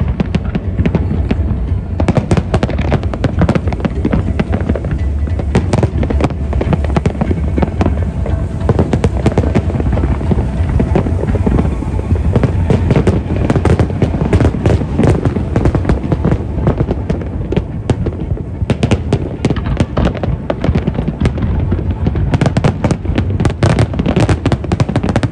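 A dense, continuous barrage of fireworks bursts: rapid sharp bangs and crackle over a low rumble of booms, thickest near the end. Music plays underneath.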